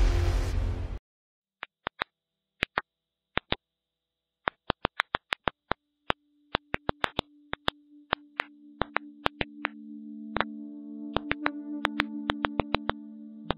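Sharp, very short clicks at irregular intervals, sometimes several in quick succession: ultrasonic pops from stressed plants, pitched down so they can be heard. About a second in, the tail of an intro music swell cuts off. From about six seconds a low synthesizer drone rises under the clicks.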